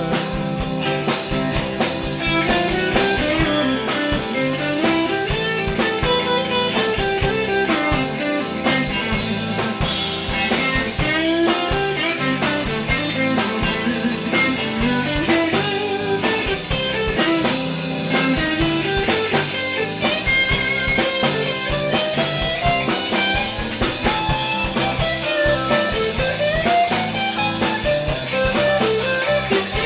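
Live country-blues band playing an instrumental break: a lead guitar line with gliding, bending notes over bass and a steady drum-kit beat.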